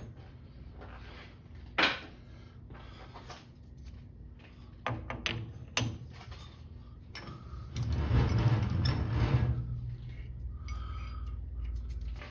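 Metal clinking and knocking as a small steel workpiece and tools are handled at a metal lathe: a few sharp clicks, then a louder stretch of rattling noise with a low hum about eight seconds in.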